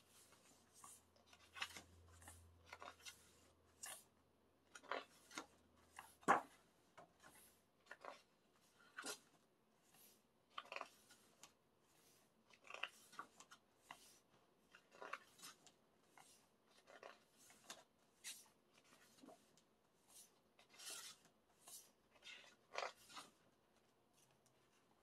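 Pages of a large, oversized photo book being turned one after another, each turn a short papery swish, about one a second, with a sharper snap about six seconds in.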